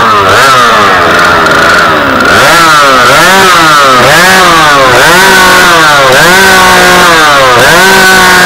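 Stock-class chainsaw engine running loud, its pitch dropping and rising back again about once a second as the revs fall and pick up repeatedly.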